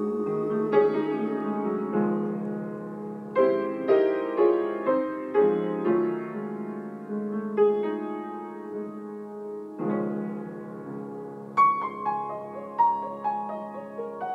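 Acoustic piano playing a solo passage: struck chords that ring and fade, ending with a falling line of single notes.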